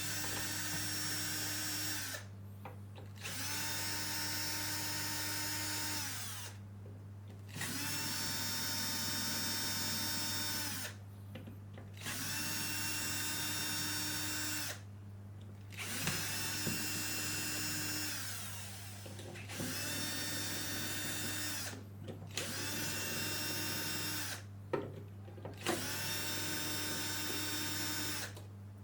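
Power drill-driver running in repeated bursts of two to four seconds, each spinning up, holding a steady whine, then winding down, as it backs out the screws of the controller box cover.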